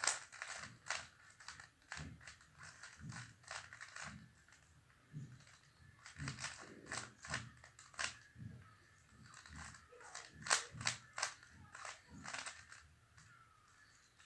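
A plastic Rubik's cube being turned by hand: irregular sharp clicks and snaps of its layers rotating, sometimes several in quick succession, with short pauses between moves.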